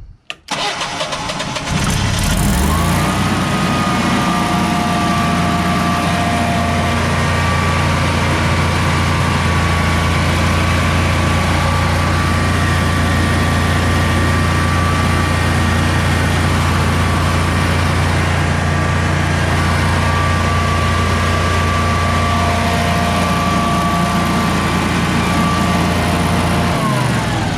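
Generac Guardian 16 kW standby generator's V-twin engine cranks and catches about two seconds in, then runs steadily with a thin whine over it. Near the end its pitch drops as it shuts down.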